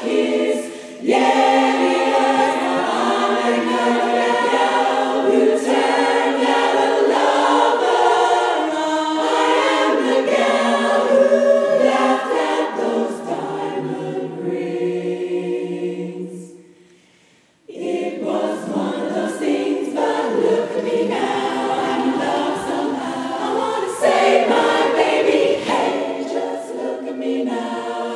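Women's barbershop chorus singing a cappella in close four-part harmony. About two-thirds of the way through, a held chord fades almost to nothing, then the full chorus comes back in at once.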